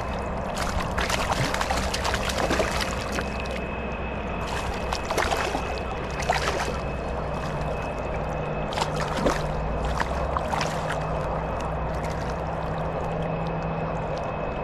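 Steady rush of river current around a wading angler, broken by repeated splashes as a hooked smallmouth bass thrashes at the surface and is grabbed by hand.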